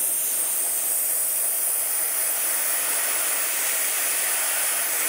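Dry ice blasting gun firing a steady hiss of compressed air and dry ice pellets at an alloy wheel rim, stripping off a stuck adhesive pad.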